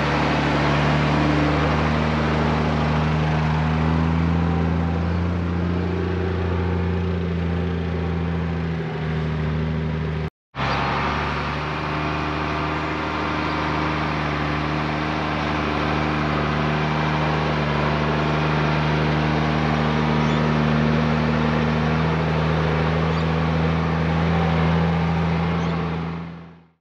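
Mercedes Unimog U1700L's six-cylinder diesel engine running at a steady speed. The sound breaks off for a moment about ten seconds in, then carries on and fades out near the end.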